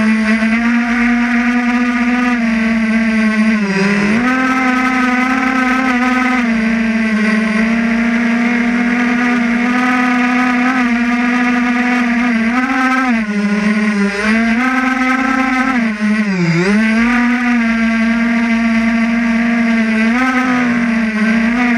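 Drone's electric motors and propellers whining steadily at a high, even pitch, the pitch dipping briefly several times as the craft manoeuvres.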